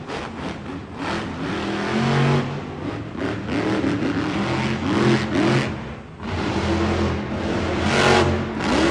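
Monster truck's supercharged V8 engine revving hard, its pitch rising and falling again and again as the truck drives the dirt course and launches off a jump.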